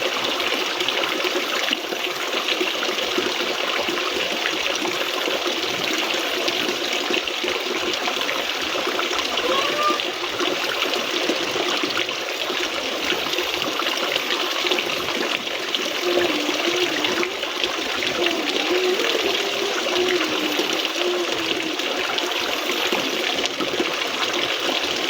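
Steady rush of flowing water, constant in level throughout.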